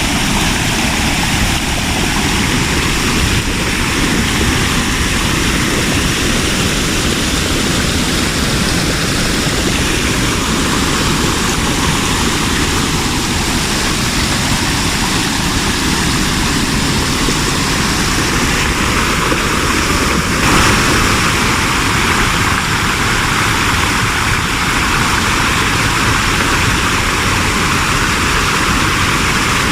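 Loud, steady rush of falling water from a waterfall, a continuous hiss over a low rumble.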